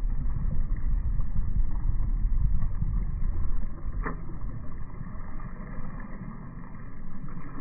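Muffled, steady low rumble of beach wind and surf on the microphone, with all the higher sound cut away, and a brief click about four seconds in.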